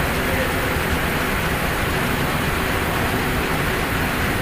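Steady hissing spray from a steam washer's jet, an even rush with no breaks.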